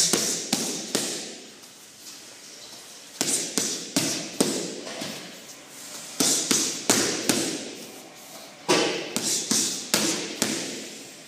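Boxing gloves smacking into focus mitts during pad work: quick combinations of three to five punches, with short pauses of a second or two between combinations.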